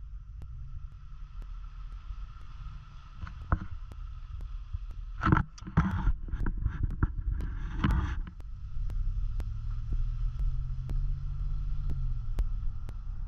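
Ram pickup truck rolling slowly, heard from inside the cab as a steady low engine and road rumble. From about four to eight seconds in there is a spell of louder, irregular noise over it.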